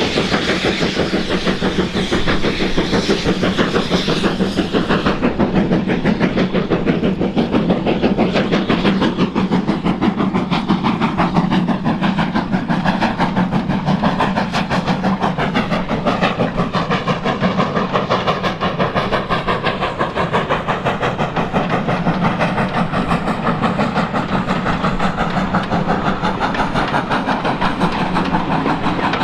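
Steam-hauled train running past: a preserved steam locomotive working, with its carriages rolling along the track in a fast, even rhythm.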